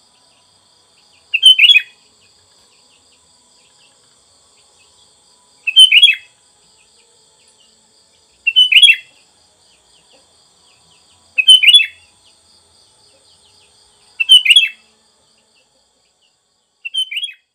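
Sooty-headed bulbul (kutilang) giving six short chirping phrases, each about half a second long and a few seconds apart. A faint steady high insect drone runs underneath.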